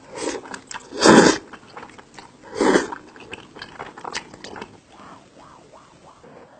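Close-up eating sounds from a mouthful of spicy cheese tteokbokki: wet chewing and biting with many small clicks, and louder noisy bursts near the start, about a second in, and again at about two and a half seconds.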